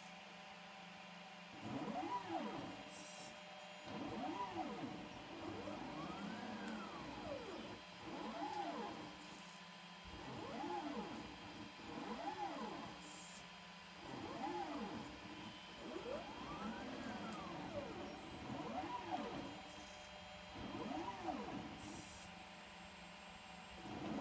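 Niryo One six-axis robotic arm's stepper motors whining as the arm carries a bottle back and forth: about a dozen whines in a row, each rising then falling in pitch over a second or two, over a steady electrical hum.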